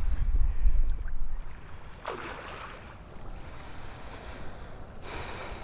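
Wind rumbling on the microphone, loudest in the first second or so, then two brief rushing noises about two seconds and five seconds in.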